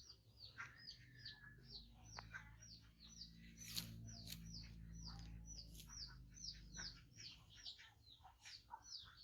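A small bird chirping continuously: short high chirps, about three a second, over a faint low steady hum.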